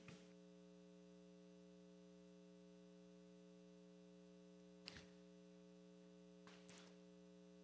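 Near silence with a steady electrical hum, and a faint click about five seconds in.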